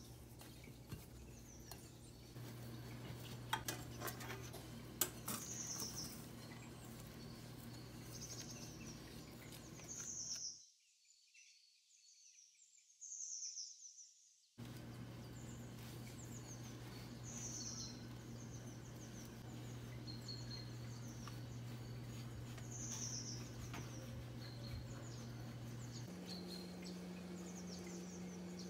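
Recorded winter birdsong: small birds giving short, high chirps every second or so, over a steady low hum. In the first few seconds, a few sharp clicks of a spatula knocking against a glass mixing bowl.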